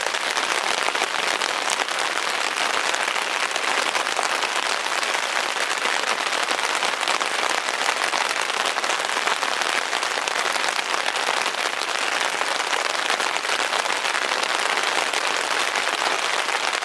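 Steady rain falling on the tent's fabric, heard from inside the tent as a dense, even patter.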